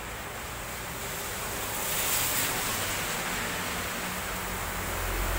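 Vehicle tyres hissing through water on a wet road. The hiss swells as a car passes about two seconds in, and the low rumble of an approaching truck rises near the end.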